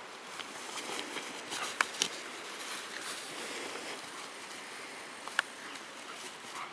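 A steady outdoor hiss broken by a few sharp clicks. The loudest are two close together about two seconds in, and another comes a little past five seconds.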